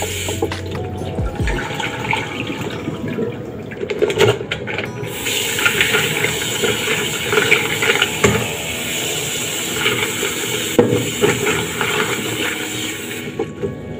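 Kitchen tap running into a plastic tray of mussels in a stainless steel sink, water splashing steadily as hands rub and shuffle the mussels, with irregular small clicks of shell on shell.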